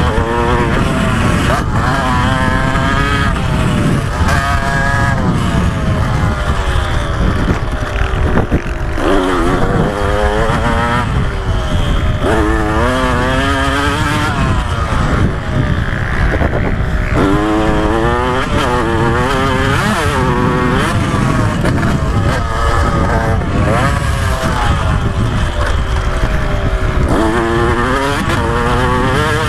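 KTM 125 SX two-stroke motocross engine, heard from the rider's helmet camera, revving hard and falling off again and again as it accelerates, shifts and slows for corners. Wind rushes on the microphone throughout.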